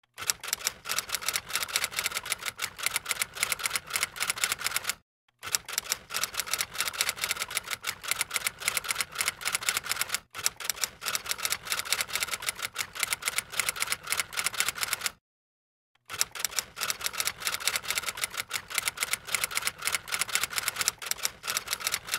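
Typewriter keys clacking rapidly in a steady run of keystrokes, broken by two short pauses: one about five seconds in and one, slightly longer, about fifteen seconds in.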